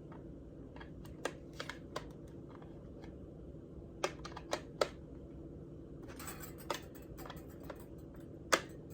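Light clicks and taps of beaters being pushed into a Pampered Chef Flex+ hand mixer attachment. A few faint clicks come first, then three sharper ones about four seconds in, and the loudest click near the end.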